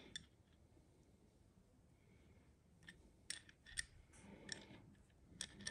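Faint, scattered metallic clicks and clinks from an adjustable wrench being set on and turned against a threaded black iron pipe fitting, with most of the sharp ticks in the second half.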